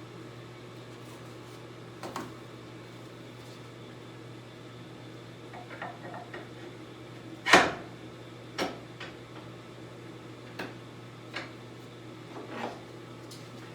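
Scattered clicks and knocks of saw parts and tools being handled during miter saw assembly, with one sharp knock about halfway through the loudest, over a steady low hum.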